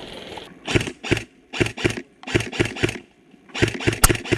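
Airsoft electric rifle, an M4-type G&G G26, firing semi-automatic shots in quick strings of two to four, about four shots a second, with brief pauses between strings.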